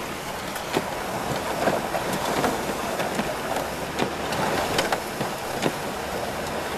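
Cab noise of a vehicle driving over a rough, wet dirt trail: a steady rumble of engine and tyres with frequent irregular knocks and rattles as it jolts over ruts and bumps.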